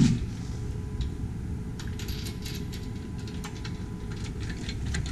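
Socket ratchet clicking in short runs as a winch mounting lock nut is run down, over a steady low background hum.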